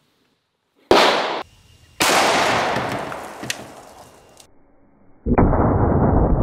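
A 600 Nitro Express cartridge going off outside a gun, set off by a pull cord: a sharp bang about a second in, then the bang again with its echo dying away over a couple of seconds. Near the end comes a deep, muffled, drawn-out rumble of the same blast, slowed down.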